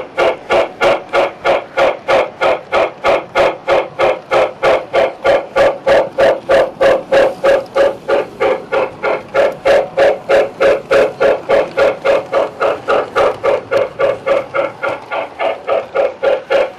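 O gauge model locomotive's sound unit ringing its bell steadily, about three rings a second.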